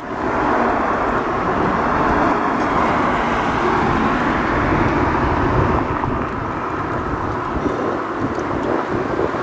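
Steady city traffic noise: a continuous, even rumble of passing vehicles on the street.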